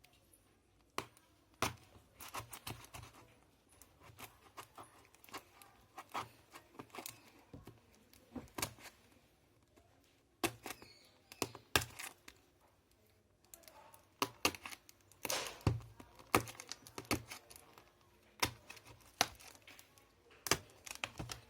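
Cardboard product box being opened and handled: irregular clicks, taps and knocks with occasional tearing and rustling.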